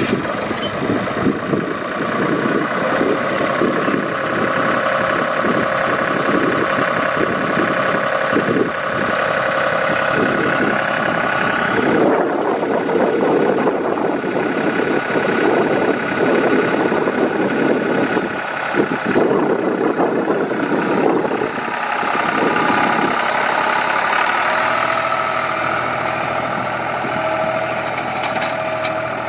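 John Deere 5075E 4x4 tractor's three-cylinder diesel engine running as the tractor is driven slowly, with a steady whine over the engine note. The sound changes about halfway through and gets a little quieter near the end as the tractor moves away.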